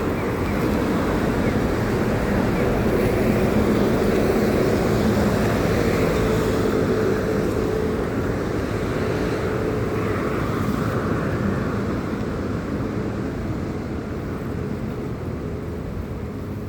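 Steady rushing noise of wind on the microphone and road noise while riding a bicycle in light rain, with a faint steady hum through the middle that slowly eases toward the end.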